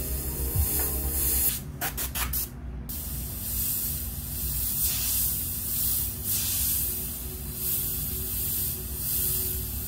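Bottom-feed airbrush spraying paint: a hiss of air that swells and fades in short pulses as the trigger is worked, with a brief break about two seconds in.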